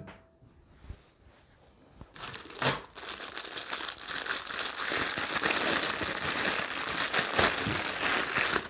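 Packaging wrap crinkling and rustling as a piece is unwrapped, starting about two seconds in and going on steadily, with a single knock shortly after it begins.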